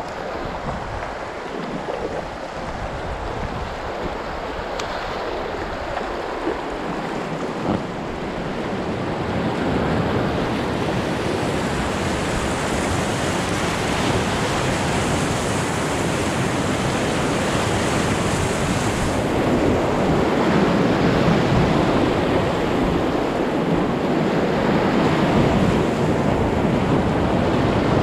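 Rushing river whitewater around an inflatable kayak, a steady rush of water that grows louder about ten seconds in and again near twenty seconds as the boat moves into rougher water.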